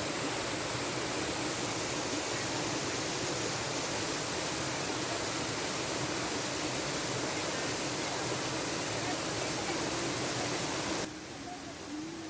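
Waterfall rushing steadily. About eleven seconds in it cuts off abruptly to a quieter, duller hiss.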